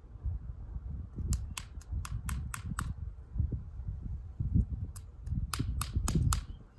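Sharp clicks of fingers tapping a small plastic container held upside down to knock the dirt out: a run of about six quick taps, then near the end a second run of about five. Low handling rumble underneath.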